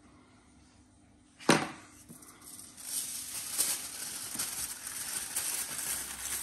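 A single sharp knock about a second and a half in, then aluminium foil crinkling and rustling steadily as it is lifted, folded and scrunched into a parcel around a buttered mushroom.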